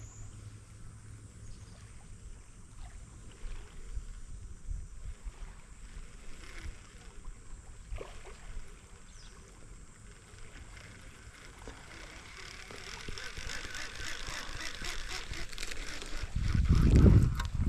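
Lake water lapping at the shore with light wind. From about two-thirds through, a crackling rustle builds, and near the end a heavy low rumble hits the microphone.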